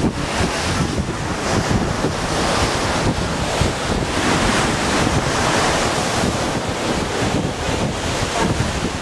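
Wind buffeting the microphone over the rushing of sea water along the hull of a moving cruise ship, a loud steady roar of noise.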